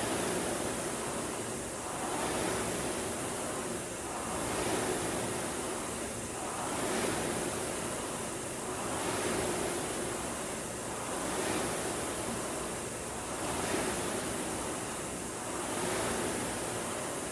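Concept2 indoor rower's fan flywheel whooshing, swelling with each drive and easing on the recovery, about one surge every two and a quarter seconds (about 26 strokes a minute).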